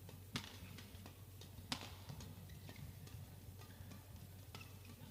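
Badminton rackets hitting the shuttlecock in a rally. Two sharp smacks come just over a second apart in the first two seconds, followed by several lighter ticks.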